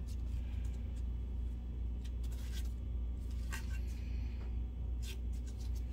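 A steady low electrical hum from running equipment, with a few faint light ticks, like gloved fingers brushing against a circuit board.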